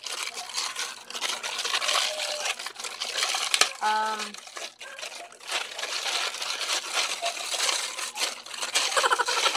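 Clear plastic packaging crinkling and rustling as it is handled and opened, with many small crackles. A short voiced sound breaks in about four seconds in.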